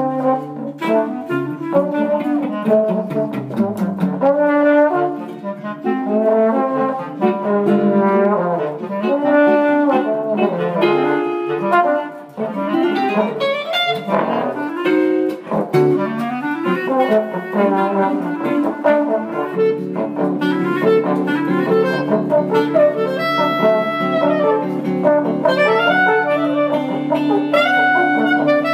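Small jazz trio of acoustic guitar, trombone and clarinet playing, with the horn lines prominent. From about halfway through, long low notes are held steadily under the moving melody.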